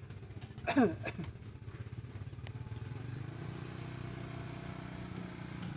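Hino 500 truck's diesel engine running steadily, a little fuller from about three seconds in. A brief loud falling sound cuts across it about a second in.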